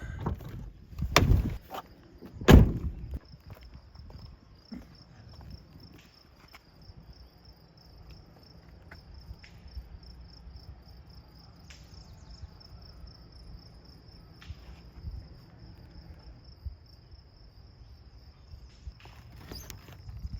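Two loud knocks in the first few seconds, then a steady high-pitched insect trill that keeps on unbroken, with a few faint clicks and rustles.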